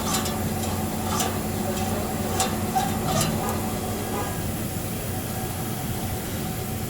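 Metallic ticking from the exhaust valve of a 2013-2015 Chevrolet Silverado while driving: a few sharp irregular ticks in the first half of the clip over the steady engine and road hum. The owner blames this valve for the truck's ticking noise while driving.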